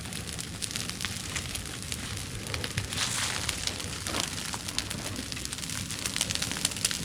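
A fire of dry cleared brush burning with dense crackling over a steady rush. The rush swells briefly about three seconds in.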